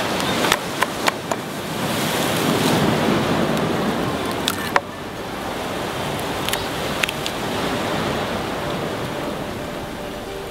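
Ocean surf rushing against rocks, a steady wash that swells about two to four seconds in. Over it, a dozen or so sharp clicks and knocks of a knife cutting through fish bones onto a wooden cutting board.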